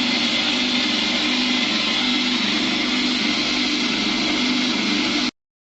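Small electric grinder running steadily at high speed, milling dry feed ingredients (grains, beans, peanuts) into powder. It cuts off suddenly about five seconds in.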